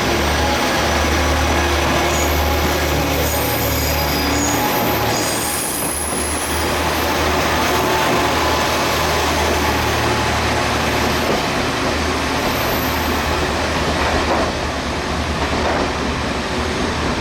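A train running through a station platform: a steady low rumble and rail noise, with brief high-pitched wheel squeals now and then.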